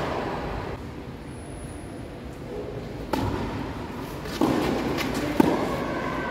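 Tennis ball being struck by rackets and bouncing on the court during a rally: several sharp hits about a second apart in the second half.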